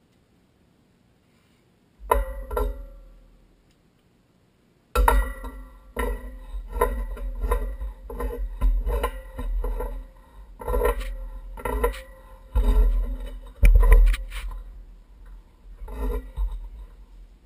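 Pipe wrench clinking and knocking against a metal water pipe and fitting as it is worked on the threads: one ringing clink about two seconds in, then from about five seconds a steady run of ringing metallic clinks, roughly two a second.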